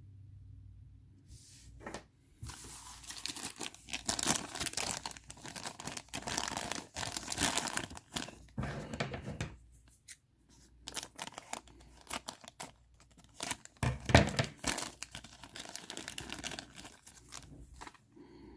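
Plastic packaging bags being torn open and crinkled by hand while miniatures are unpacked. Dense crackling for several seconds, then sparser crinkles and clicks, with one louder crackle about fourteen seconds in.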